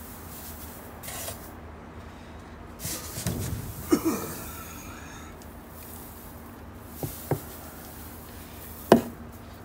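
Quiet handling sounds in a wooden nest box bedded with rice husks, with a brief stir around three to four seconds in and a few sharp knocks later, the loudest about nine seconds in.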